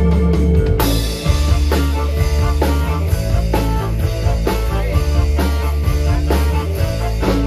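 Live band playing an instrumental through a large stage PA system: drum kit and electric guitars over a heavy, steady bass line, with a loud cymbal crash about a second in.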